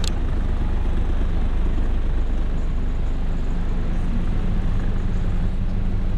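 Car subwoofer system (four 12-inch, two 15-inch and one 18-inch subs) playing loud, deep bass tones, heard from outside the car. The pitch steps to a somewhat higher tone about five and a half seconds in.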